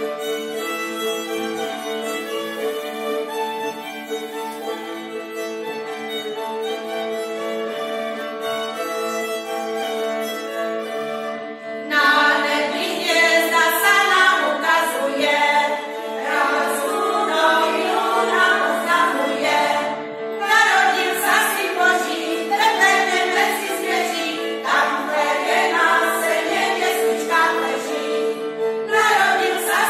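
Violin playing a tune over a steady held accompaniment. About twelve seconds in, a group of women's voices comes in singing with it, and the music gets louder.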